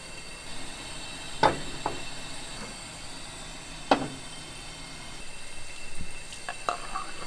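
Sharp knocks of filled black earthenware bowls set down on a gas stove's metal grate, two loud ones about a second and a half in and near four seconds, with lighter clatter near the end, over a steady kitchen hum.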